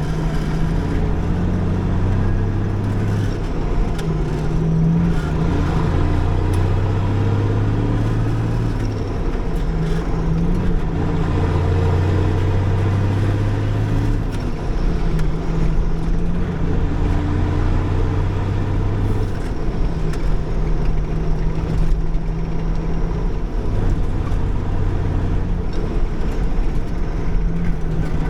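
Diesel engine of a 1985 International Eagle semi truck running under load while driving. Its low drone breaks off and picks up again several times.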